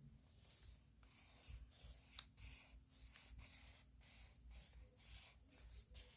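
Pencil scratching on paper in quick repeated strokes, about two a second, sketching an outline.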